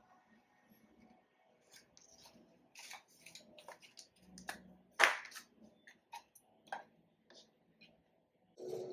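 Faint paper and light cardboard handling: a documentation booklet and sticker sheet rustling and tapping as they are slid into a small paper document box, in scattered short crinkles and clicks. One sharper paper snap about five seconds in is the loudest, and a denser rustling starts just before the end.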